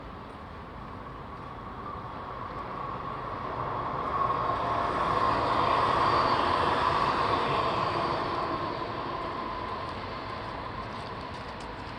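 A vehicle passing close by: a steady rumbling hum that swells to a peak about six seconds in and then fades away.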